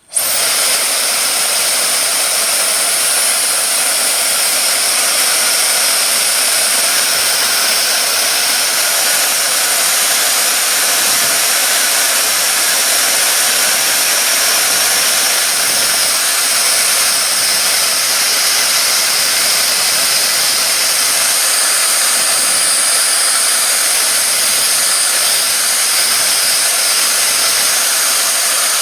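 Hair dryer switched on and running steadily at full power: an abrupt start, then an even, loud rush of air with faint high-pitched tones.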